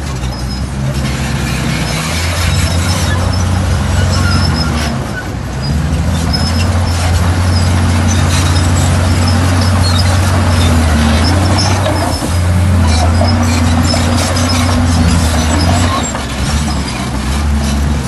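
Komatsu D51PX crawler bulldozer's diesel engine working hard and steady, easing off briefly a few times, with high metallic squeaks throughout.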